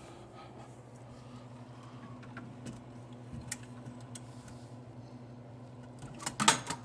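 Prize-wheel reel assembly of a redemption arcade game being worked free and pulled out through the machine's front: a few light clicks and knocks, then a quick cluster of loud clacks near the end, over a steady low hum.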